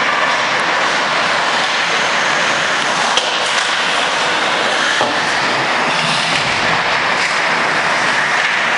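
Steady noise of ice hockey play in a rink, skates scraping across the ice, with a sharp click about three seconds in.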